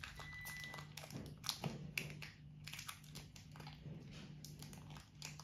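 Faint crinkling and crackling of a foil trading-card booster pack being worked open by hand, with scattered small clicks.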